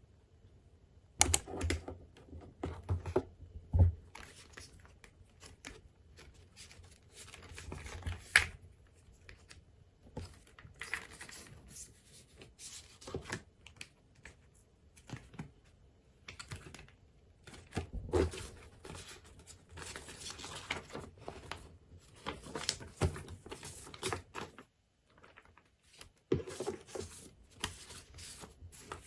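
Handling sounds from unboxing a tablet: irregular taps and clicks as the iPad and its cardboard box are handled, with paper rustling as the leaflets and manual are lifted out. A sharp click sounds about a second in.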